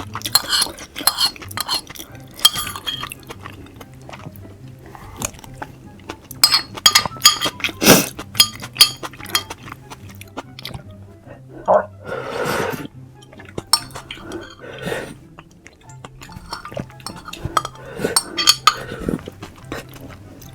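Utensils clinking against dishes, with a run of sharp clicks and short eating noises, over quiet background music.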